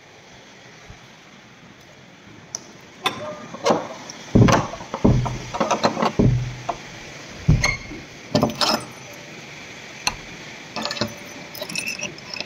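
Keys jangling, with a run of metallic clicks and knocks as a door is locked with a padlock, over the steady hiss of rain.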